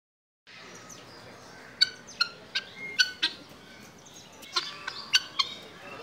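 Helmeted guineafowl giving short, sharp calls, a string of single calls from about two seconds in and a denser flurry of them near the end.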